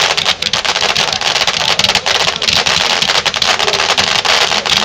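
Fireworks firing in quick succession: a dense, continuous crackle of many small pops and bangs.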